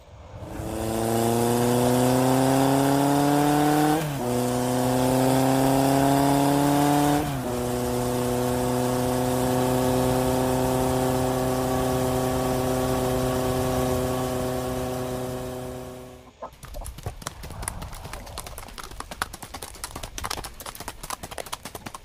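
An engine accelerating: its pitch climbs, drops back twice as if shifting gear, then holds steady before cutting off abruptly about 16 seconds in. Irregular wooden knocks and clatter follow as lumber boards are handled.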